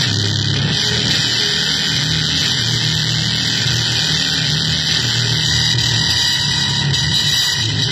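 Harsh noise music from an electronic keyboard: a dense, unbroken wall of hissing noise with a low drone beneath it, steady in level and without a clear beat.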